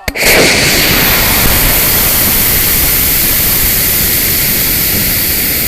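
High-power model rocket motor igniting with a sharp click, then burning as a loud, steady rushing noise that sets in at once and fades only slightly.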